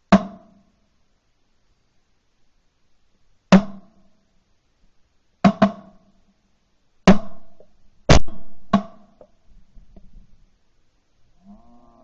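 Shotgun reports recorded from a camera mounted on the gun's barrel: about seven sharp shots at irregular intervals, one near the start, then every one to two seconds from about three and a half seconds in, with two almost on top of each other near the middle.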